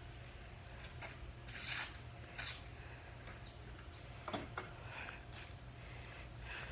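Scattered light scraping and rustling handling noises with a few soft knocks as a small engine is lifted off a go-kart frame, over a low steady hum.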